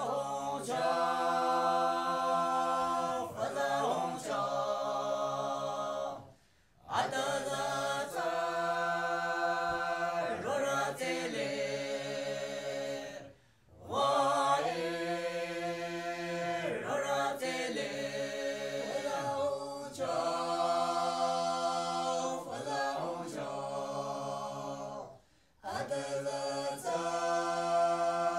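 Background music: voices singing a capella in long held chords, chant-like, in phrases broken by three short pauses.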